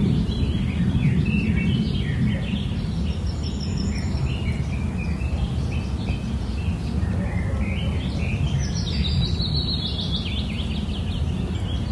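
Small birds chirping and twittering over a steady low background rumble, with a quick run of calls that climbs and then falls about seven to ten seconds in.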